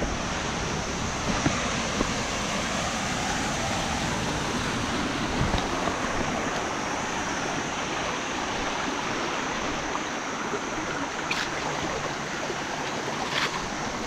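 Steady rushing of a forest waterfall and its stream, with a couple of faint clicks near the end.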